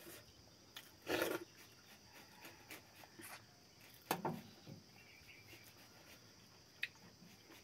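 Eating by hand from a steel plate of rice and dal: two short mouth noises as food is taken in, about a second in and again about four seconds in, with a small sharp click near the end.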